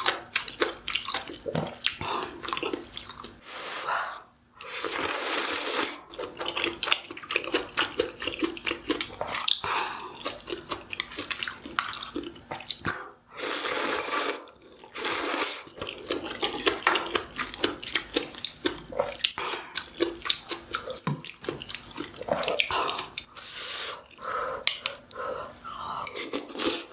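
Close-miked eating: steady chewing and biting with many small clicks, broken by a few slurps lasting a second or two each.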